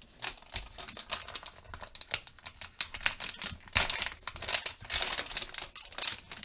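Black foil pouch crinkling and crackling as hands handle it and pull it open, in a quick, irregular run of sharp crackles.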